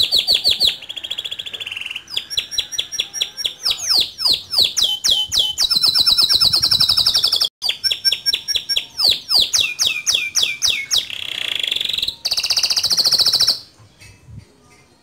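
Male domestic canary singing: high-pitched rolling trills and rapidly repeated sweeping notes, one phrase after another, with a very brief break in the middle. The song stops about a second and a half before the end.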